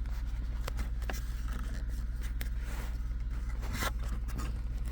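Scattered small clicks and scraping as the plastic parts of a Volvo automatic gear shifter are handled and worked on during a repair, over a steady low hum.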